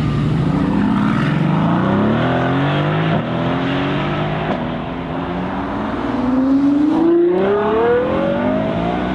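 Sports car engine accelerating hard through the gears: the note climbs, drops back at each upshift, and finishes in one long rising pull.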